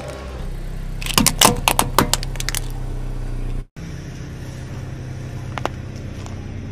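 A car tyre crushing something brittle on asphalt: a quick run of sharp cracks and crunches. After a short break, a car engine running low and steady as the tyre rolls slowly onto a soft rubber prop, with only a couple of faint clicks.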